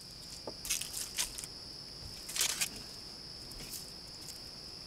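Steady high-pitched chorus of insects. A few short scuffs and rustles from someone moving close by cut across it, the loudest about two and a half seconds in.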